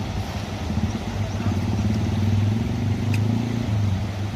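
An engine running steadily with a low, even rumble, and a brief click about three seconds in.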